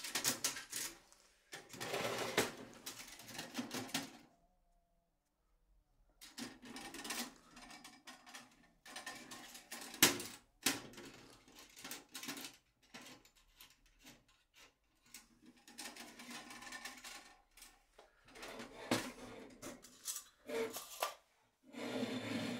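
Light titanium stove parts being handled: a door latch and folding legs worked by hand, giving intermittent metallic clicks and clattering in short bouts, with one sharp click about ten seconds in.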